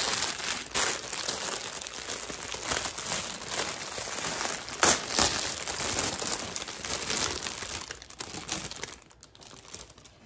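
Packaging crinkling continuously as an item is unwrapped and handled, with one sharper crack about five seconds in; the crinkling dies down near the end.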